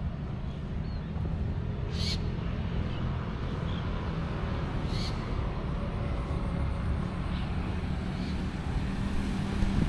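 Steady rumble of busy road traffic, with two short high-pitched chirps about two and five seconds in.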